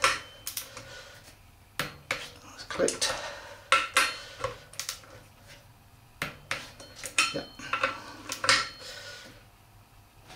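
Click-type torque wrench and socket on the rear sprocket bolts: a run of sharp, irregular metal clicks and clinks as the socket is set on each bolt and the wrench clicks over at its 55 N·m setting, growing sparser near the end.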